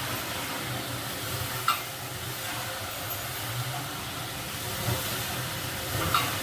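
Steady hiss and rush of steam from a Zhar Gorynych closed-heater banya stove as water is let in through its tap onto the hot stones, with a low rumble beneath. Two short clicks, about two seconds in and near the end.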